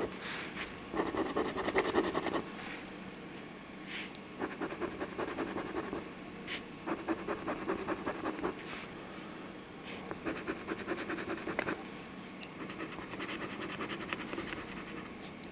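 A coin scratching the coating off a paper scratch-off lottery ticket in quick back-and-forth strokes, coming in several bursts with short pauses between.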